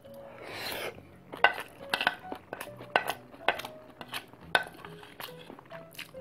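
Metal spoon clinking and scraping against a bowl of bibimbap: repeated sharp clinks every half second or so as spoonfuls are scooped, with chewing between them.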